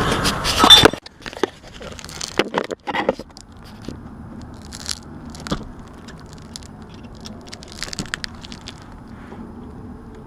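Scattered clicks and knocks of hands and tools working on an air conditioner, several close together in the first few seconds and a few single ones later, over a faint steady background hum.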